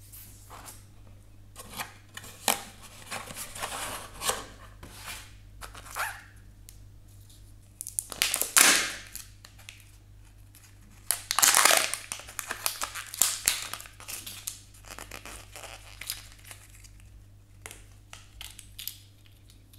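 Crinkling and tearing of the plastic wrap on a Kinder Joy toy capsule, handled and peeled open by hand. It comes in irregular rustling bursts, the loudest about eight seconds in and again about eleven to twelve seconds in.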